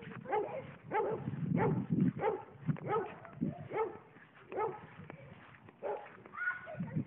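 A dog barking over and over, about two barks a second, the barks thinning out for a couple of seconds in the middle.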